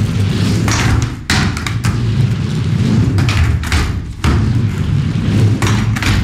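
Skateboard wheels rumbling on a mini ramp, with several hard thuds and clacks as the board lands and its trucks strike the coping.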